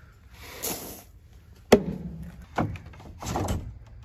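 Wooden chicken-coop door being handled: a scrape, then two sharp wooden knocks about a second apart, then another scrape.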